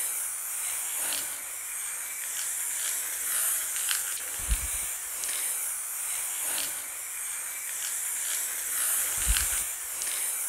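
Aerosol can of grey chalk-effect spray paint hissing as it sprays a coat onto a wooden board. Two brief low thumps, about halfway through and near the end.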